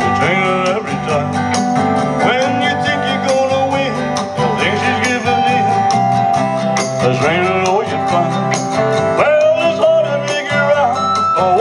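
Upbeat rock-and-roll backing music with guitar and drums, an instrumental stretch with no singing.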